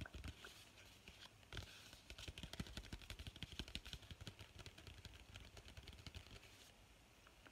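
Paper envelope rustling and crinkling under the fingers as it is handled and turned over, a quiet run of small crackles that thins out near the end.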